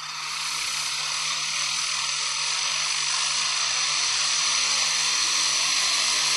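A steady hiss of breath blown through a drinking straw at a pair of welded ball-bearing hurricane balls, with the balls whirring as they spin up on a glass mirror. The hiss builds over the first second, then holds steady and stops right at the end.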